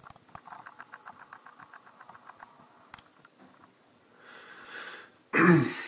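A person's breath and throat sounds: a drawn-in breath about four seconds in, then a loud, short voiced exhale like a cough near the end. Before it, a run of faint rapid ticks, about eight a second, for the first couple of seconds.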